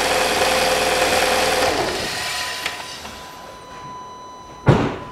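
2007 Volkswagen Passat B6's 2.0-litre FSI petrol four-cylinder idling on freshly filled oil, then switched off about two seconds in and running down to a stop. Near the end comes a single sharp, heavy thump, the loudest sound.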